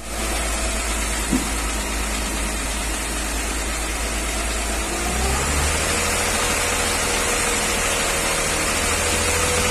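Mercedes G320's inline-six engine running with its air intake removed; there is a single sharp click about a second in, and about five seconds in the engine speed rises and holds steady. The engine has a knock, worse when cold, that the owner suspects is a piston or wrist pin.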